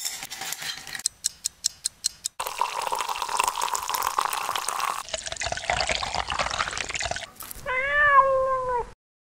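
Ice cubes clattering into a glass, then a few separate clinks of single cubes. Milk is poured from a carton into a glass, followed by more pouring for several seconds. Near the end a cat gives one meow, the loudest sound.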